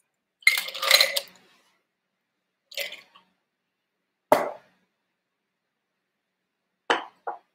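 Stainless steel cocktail shaker and glassware being handled and set down on a kitchen counter: a clattering clink about half a second in, a shorter one near three seconds, a sharp knock just past four seconds, and two quick clicks near the end.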